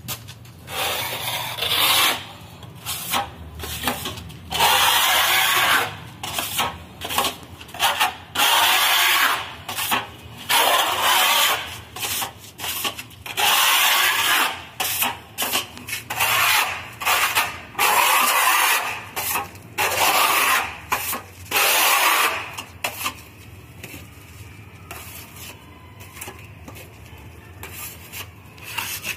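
Metal putty knife spreading white putty over a rough cement-plastered wall: repeated scraping strokes, each about half a second to a second long. The strokes become much fainter for the last several seconds.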